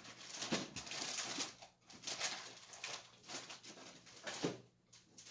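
Someone rummaging through stored parts and boxes while searching for an item: irregular rustling and scraping, with a quieter gap near the end.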